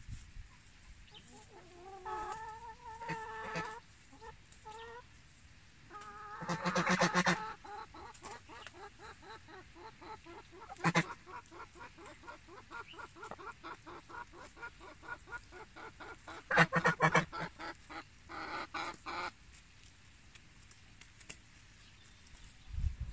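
Chickens clucking, with a long run of quick repeated clucks through the middle and a few louder calls about seven and seventeen seconds in.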